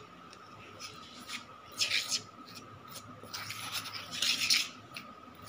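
Metal spoon stirring dry flour and chilli powder in a steel bowl, scraping against the bowl. There are a few scratchy strokes, the loudest about two seconds in and again around four seconds in.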